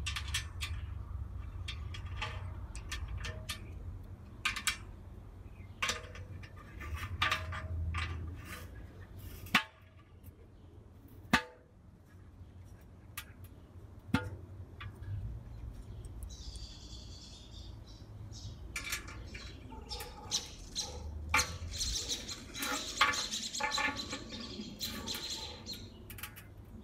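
Sharp metallic clicks and taps of hardware being fitted inside an enamelled steel kettle grill lid, scattered irregularly, over a low rumble. Birds chirp in the second half.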